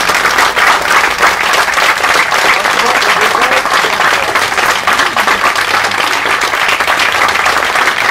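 Audience applauding: many hands clapping, dense and steady throughout.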